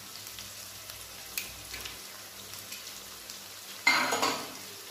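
Oil with onions and spice pastes sizzling in a kadai, a steady faint hiss with scattered small crackles. About four seconds in comes a short, louder burst of noise lasting about half a second.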